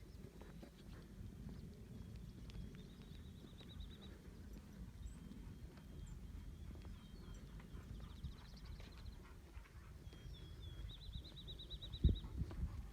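A songbird singing short rapid trills, three times, over a steady low outdoor rumble, with a few low thumps near the end.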